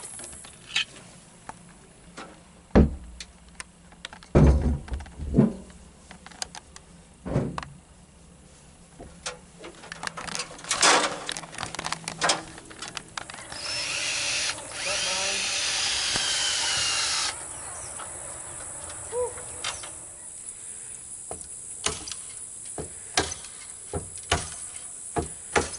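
A power drill runs steadily for about three and a half seconds in the middle, with scattered knocks and thumps of work on the wooden coop before it and light clicks after.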